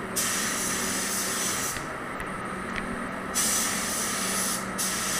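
Compressed-air gravity-feed spray gun hissing as it sprays primer, in passes, with the trigger let off twice for a moment.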